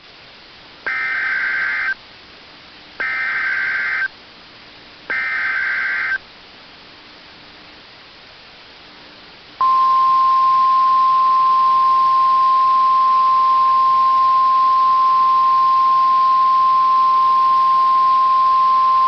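Emergency Alert System header: three bursts of warbling data tones, each about a second long and a second apart. After a pause of about three and a half seconds, a loud, steady single-pitch attention tone starts and holds.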